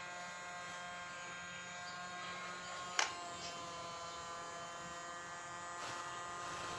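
Small toy vacuum cleaner's electric motor running with a steady buzzing whine. There is a single sharp click about three seconds in.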